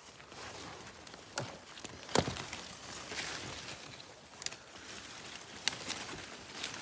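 Rustling in forest undergrowth with four sharp cracks, the loudest about two seconds in.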